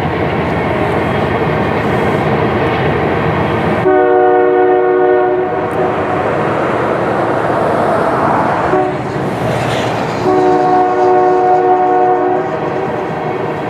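Nathan Airchime locomotive air horn sounding its chord in blasts (a long blast about four seconds in, a short one near the middle, another long one near the end) over the steady rumble of a moving train.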